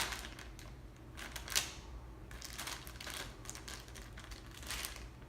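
Handling noises: irregular rustles and light clicks as a squishy toy is picked up and handled among other toys on a table, with a sharper knock about a second and a half in.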